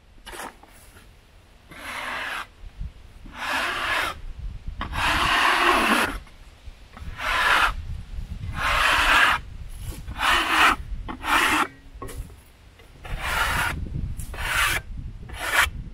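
A metal-bladed scraper drawn again and again across a rough-sawn red oak board, clearing sawdust off the fresh cut: about a dozen rasping strokes at uneven spacing, the longest about five seconds in.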